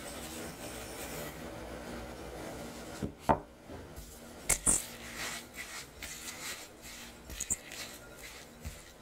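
A silicone spatula mixes granulated sugar into softened cream cheese in a glass bowl. About a third of the way in there is a sharp knock, followed by more knocks and scraping and rubbing against the glass.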